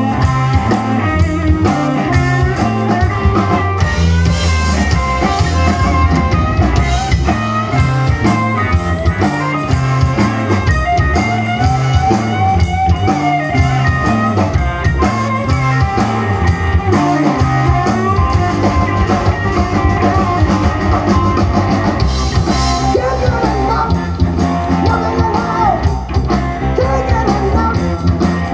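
Live rock band playing: electric guitars, bass guitar and a drum kit, loud and steady.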